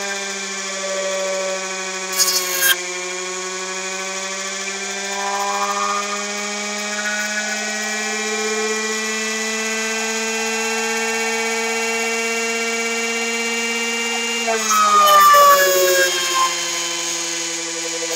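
Air-core motor generator running with a steady whine whose pitch creeps slowly upward. A brief electric-arc crackle comes about two seconds in. Near the end the whine's pitch drops suddenly as louder crackling and hissing from the plasma arc at the electrode tip takes over.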